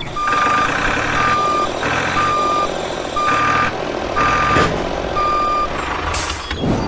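Truck reversing alarm beeping six times, about once a second, each beep about half a second long at a single pitch, with a short hiss near the end.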